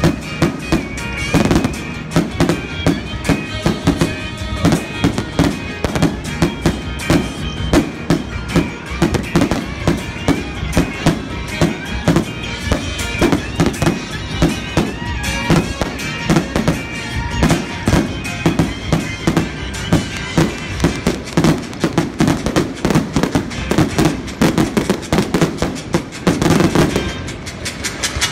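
Fireworks display firing: a rapid, continuous run of bangs and crackles from shells and comets, with music playing along.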